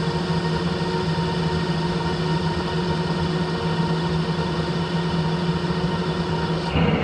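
Harrison lathe running steadily under a facing cut on a cast locomotive cylinder cover held in a four-jaw chuck: a steady machine hum with a constant whine over the noise of the tool cutting. The sound changes abruptly near the end.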